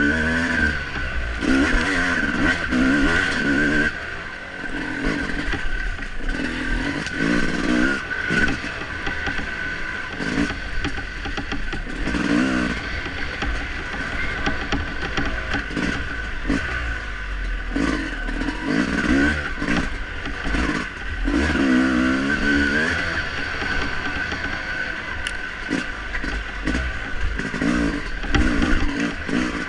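Dirt bike engine revving up and down over and over as the bike is ridden hard along a trail, its pitch rising and falling every couple of seconds, with a low rumble and some clatter underneath.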